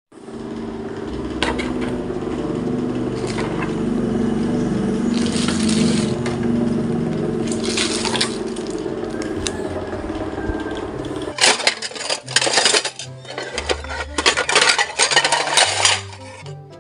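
Kitchenware clattering: a metal pot lid and a plate knocking and clinking in quick irregular strikes over the last few seconds. Before that there is a steady hum with a few scattered clinks.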